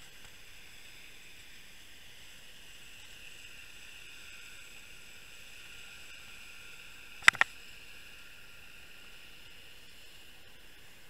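Steady hiss of an underwater camera's recording, with faint high whines running through it. About seven seconds in come two sharp clicks a fraction of a second apart, the loudest sounds here.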